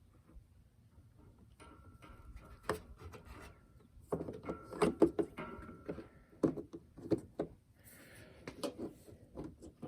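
Hard plastic headlight parts being handled: scattered clicks, small knocks and rubbing as a bulb and its socket are worked in the housing, busier from about four seconds in.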